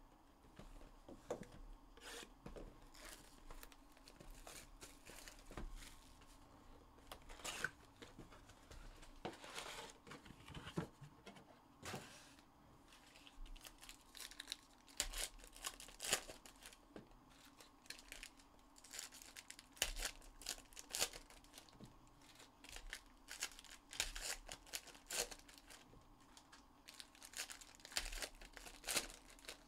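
Foil wrappers of Panini Donruss basketball card packs being torn open and crinkled by hand: a string of irregular crackling rips and rustles.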